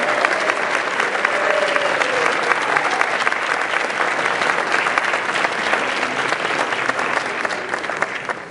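A large standing crowd applauding steadily, the clapping thinning out and fading near the end.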